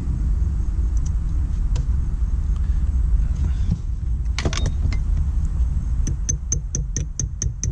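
Claw hammer tapping a pin punch to drive the pin back into a Shelby GT350 shift lever: quick light metal-on-metal taps, about four a second, starting about six seconds in. A steady low rumble runs underneath throughout.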